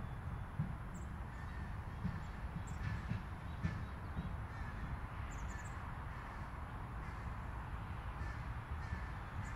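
Crows cawing now and then over a steady low rumble of distant city traffic.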